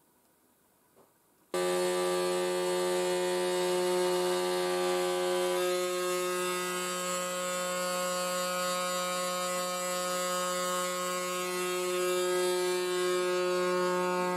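CNC router spindle motor running steadily, milling a carbon fibre sheet: a loud, even hum with a whine that starts abruptly about a second and a half in.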